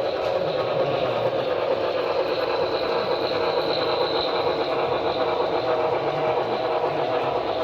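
HO-scale model steam locomotive and freight train running along the layout: a steady mechanical whir of the small motor and the wheels on the rails.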